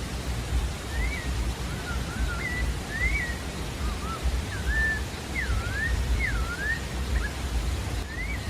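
A sabiá-da-várzea singing: a phrase of short, clear whistled notes that slur up and down, starting about a second in and running for about six seconds, with one more note near the end. A steady low rushing noise lies underneath.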